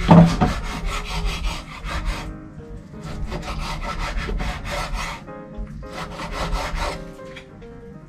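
A kitchen knife cutting raw beef on a cutting board: runs of quick back-and-forth strokes, three runs with short pauses between. Background music plays underneath.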